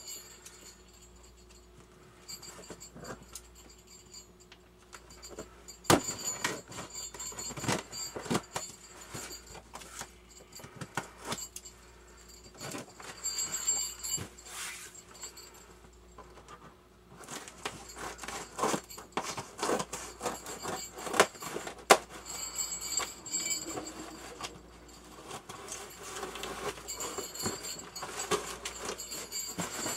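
Irregular rustling, crinkling and clicking of a mailed package being handled and opened, with a few sharp knocks, busier in the second half.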